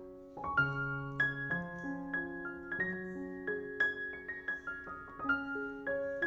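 Background piano music: a slow melody of single struck notes over lower held notes, picking up again about half a second in.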